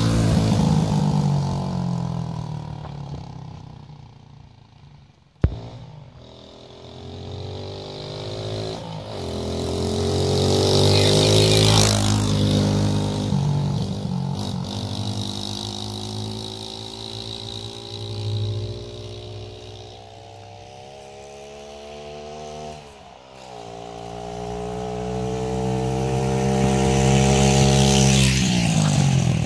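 Mini bike engine revving and running under throttle, its pitch rising and falling as it rides away and back along the road. Loud as it passes close at the start, fading as it moves off, then building to another loud close pass near the end. One sharp crack about five seconds in.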